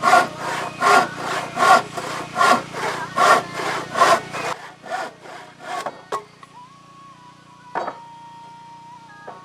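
Hand saw cutting through wood in steady back-and-forth strokes, about one every 0.8 seconds. The strokes grow fainter and stop about six seconds in, followed by a couple of sharp knocks.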